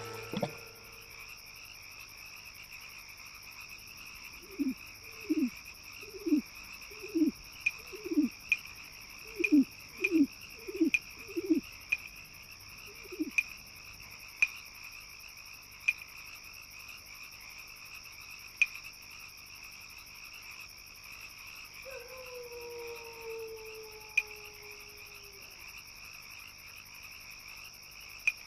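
About ten short, falling frog-like croaks in an irregular run over a steady high insect-like drone. A few faint clicks come later, then one longer falling call.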